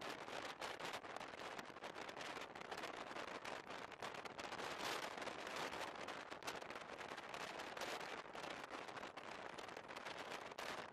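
SJ night train running, heard from inside the carriage: a steady rushing rolling noise laced with a dense crackle of small clicks.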